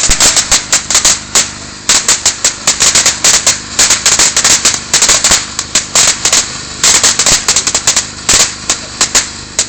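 Hot oil in a paella pan spitting and popping, with a dense, irregular run of sharp cracks over a steady low hum.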